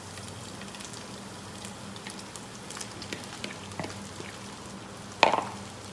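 Shredded cooked chicken being scraped from a plastic bowl into a pot of hot oil with sautéed onion and garlic: light crackling and sizzling with many small pattering ticks as the shreds land. One sharp knock about five seconds in.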